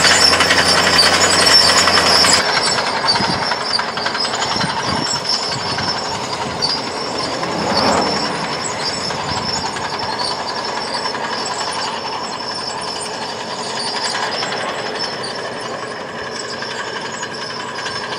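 Caterpillar crawler tractor's diesel engine running steadily as it pulls a disc harrow. The sound changes abruptly about two seconds in, losing its low hum, and then runs on evenly.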